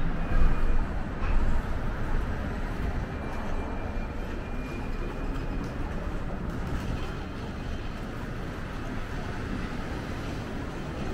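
Steady city street noise, mainly a low rumble like passing traffic, swelling louder a couple of times in the first two seconds.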